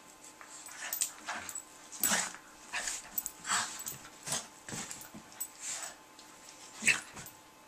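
Two dogs play-wrestling, making a run of short, irregular breathy dog noises and brief play vocalisations, with the loudest one near the end.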